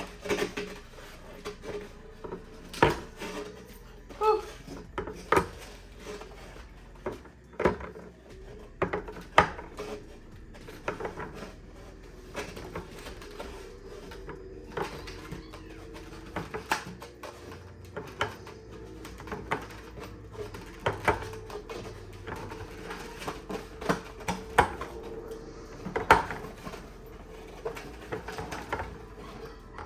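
Plastic bins, jars and containers being set down and shifted on refrigerator shelves: irregular clicks and knocks every second or so, over a faint steady hum.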